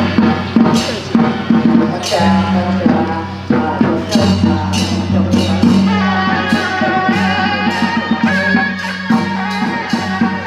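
Traditional Taiwanese temple-procession music: drums and cymbals struck in a fast, irregular pattern, with a wind-instrument melody joining about six seconds in.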